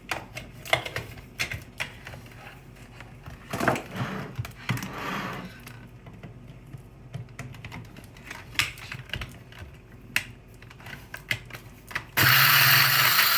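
Scattered clicks and knocks of the spice grinder's jar being handled and fitted, then near the end an electric spice grinder switches on and runs loudly, its motor pitch rising as it spins up, grinding whole spices (coriander seeds, cumin seeds, black pepper, crushed peppers) into masala.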